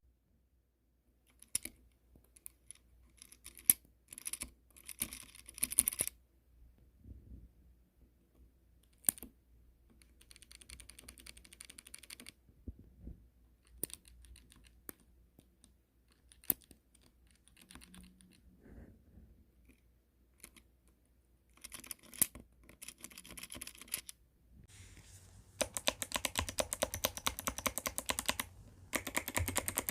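Mechanical keyboard (ABKO ADK05) with its stabilized keys pressed on stock, unlubricated stabilizers: scattered single key clacks and short runs of presses. About 25 seconds in it changes to fast, continuous typing on Kailh Box White clicky switches, with the stabilizers now lubricated.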